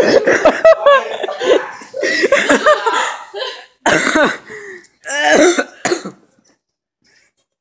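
A person coughing in a run of short bursts, mixed with brief voiced sounds, stopping about six seconds in.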